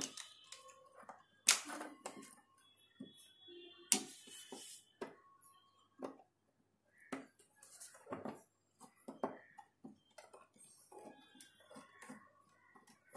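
Irregular small metal clicks and clinks of a screwdriver working the wire terminals on an electric geyser's cut-out and thermostat, with two sharper knocks about one and a half and four seconds in.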